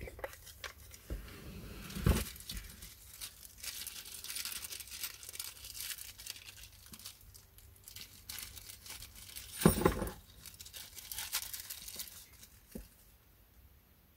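Small rubber fittings and a plastic headrest bracket being handled: crinkling rustles and scattered clicks, with a louder knock about ten seconds in.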